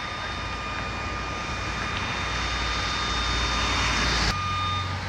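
Steady engine noise, a rumble and hiss that slowly grows louder, with a thin steady whine over it. The low part of the rumble cuts off suddenly about four seconds in.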